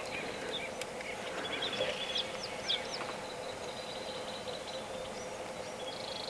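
Faint bird calls outdoors: a few short chirps in quick succession about two to three seconds in, over steady background noise.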